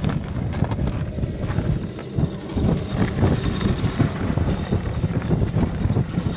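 Wind buffeting the microphone: a gusty low rumble that swells and dips.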